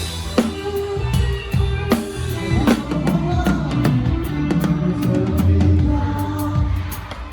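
Live band music in which a drum kit is close and prominent: a steady beat of kick and snare with regular cymbal strokes, under bass and sustained melody lines.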